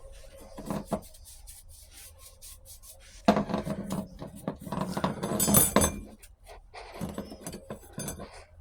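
Steel clutch plates and parts from a 4L60E automatic transmission being handled on the bench, scraping and clinking against each other as they come out of a clutch drum. A few light clicks first, then a long stretch of scraping and clatter about three seconds in, and a shorter one near the end.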